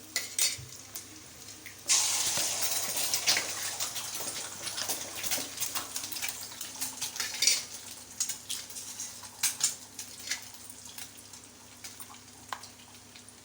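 A pan of hot oil sizzles up suddenly about two seconds in, as beaten egg is poured in, and the sizzle slowly dies down. A metal spoon clinks and scrapes against the pan throughout.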